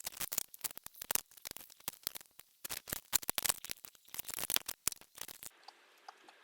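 Irregular clicks, taps and small knocks of parts and tools being handled while working on a motorcycle, stopping about five and a half seconds in.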